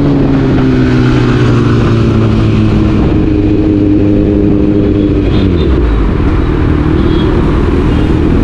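Kawasaki Z900's inline-four engine through an aftermarket exhaust, off the throttle and slowing in traffic. The exhaust note sinks gradually, drops lower about six seconds in, and begins to climb again at the very end as the throttle opens.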